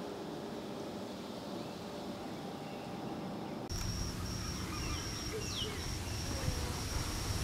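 Quiet outdoor background. A little over halfway through it changes abruptly to another backdrop: a high, thin note repeating about twice a second, a few faint falling chirps, and a low rumble.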